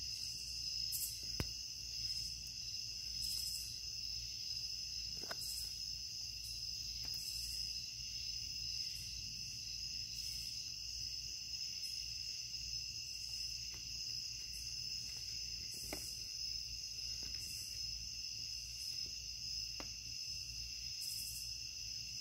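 Crickets chorusing: a steady, unbroken high trill, with a few faint ticks now and then.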